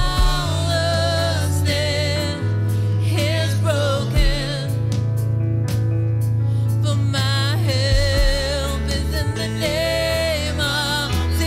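Gospel worship music: a singer holding long, wavering notes over a steady bass line.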